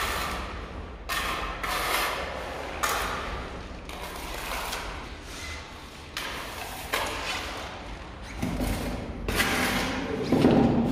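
Steel trowel scraping mortar along a concrete wall above ceramic skirting tiles, in a series of short strokes about every second or two. A louder, lower rumble comes in near the end.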